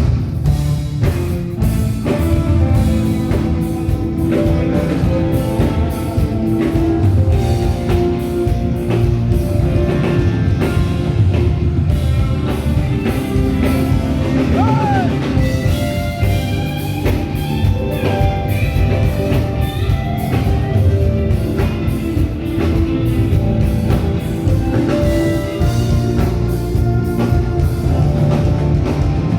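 A band with drum kit and guitars playing a rock-style song, probably during a soundcheck, with steady drum strikes under sustained chords.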